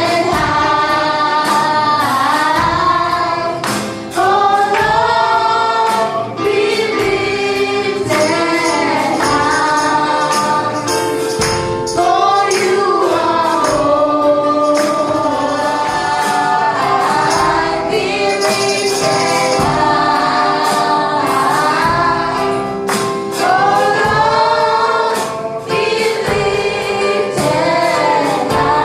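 Congregational gospel worship singing: a group of voices singing together over instrumental backing, with regular percussion hits.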